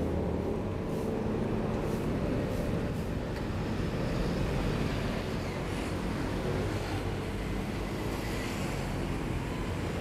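Steady road traffic noise, with motor vehicle engines running.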